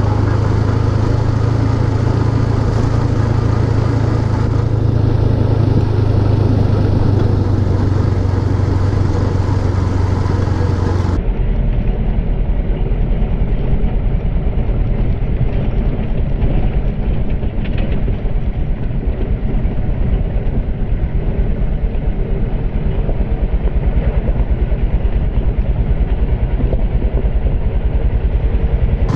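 Motorcycle engine running on the move, a loud steady drone mixed with road and wind noise. About eleven seconds in, the sound changes abruptly to a duller one with a rapid low pulsing.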